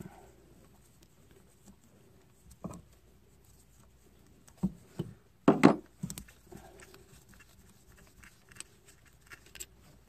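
Gloved hands working a plastic ignition coil and its wiring connector on a Honda Odyssey engine: scattered clicks and light knocks, the loudest cluster about five and a half seconds in.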